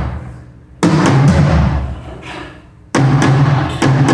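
A drum-kit tom struck one hit at a time for a sound check. It plays three hits, each left to ring out and fade, the last two closer together near the end.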